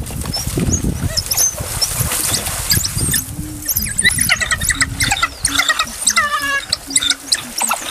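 A pack of African wild dogs twittering: many overlapping high, squeaky chirps, growing denser from about three seconds in, the excited calls of the pack closing in on prey.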